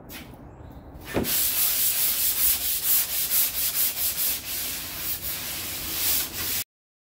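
Sandpaper rubbed by hand over hardened body filler (Bondo) on a car's quarter panel: a run of quick back-and-forth scratching strokes. It starts about a second in, just after a single knock, and cuts off suddenly near the end.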